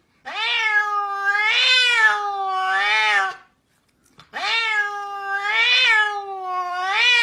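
Domestic cat meowing: two long, drawn-out meows of about three seconds each, separated by a short pause. Each meow wavers up and down in pitch about three times.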